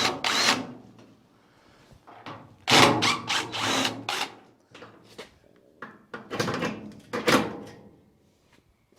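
Sheet-metal front panel of a washing machine being unclipped and pulled off: three bouts of clattering knocks and metal rattles a few seconds apart.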